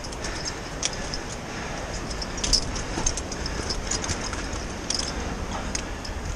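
Footsteps on a rocky path of loose stones and scree, with irregular clicking and crunching of stones shifting underfoot.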